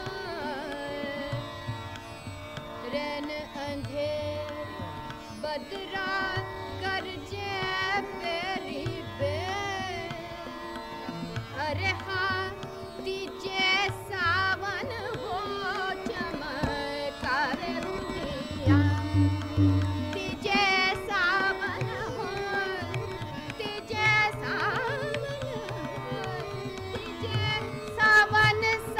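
Hindustani semi-classical kajri in raga Khamaj: a woman sings ornamented, gliding melodic phrases over a harmonium, while tabla strokes keep a steady rhythmic cycle.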